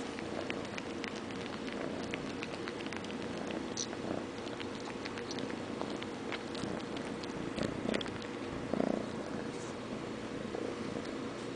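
Kitten purring steadily while suckling on a fleece blanket, with many small clicks of sucking. Two louder bumps come about two-thirds of the way through.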